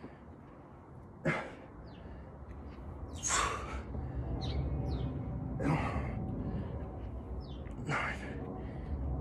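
A person breathing hard during a set of elbow-to-knee crunches: four sharp, forceful breaths about two seconds apart, one for each rep. Faint bird chirps are heard between the breaths.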